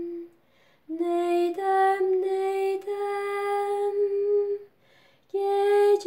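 A woman singing a Turkish folk song (türkü) with no accompaniment, holding long, steady wordless notes between lines of the lyric. Her voice breaks off twice for a short breath, once just after the start and again near the end.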